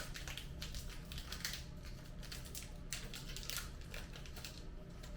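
Snack packaging being handled and opened: a quick, irregular run of crinkling and crackling from the Kit Kat's box and wrapper.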